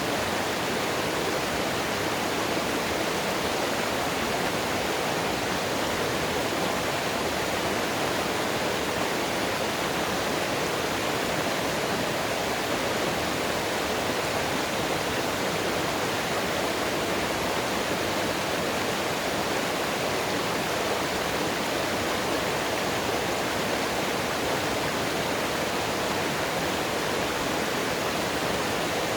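Flowing mountain water rushing steadily: an even, unbroken hiss that does not change.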